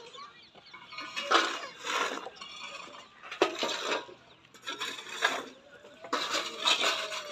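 A metal shovel scraping up broken brick and rubble and tipping it into a metal pan, with a scrape and clatter every second or two.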